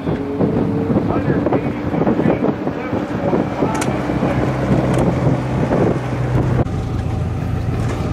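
Antique farm tractor engine working hard under load as it drags a weight-transfer pulling sled, with a rough, steady engine note. The sound changes abruptly about two-thirds of the way in.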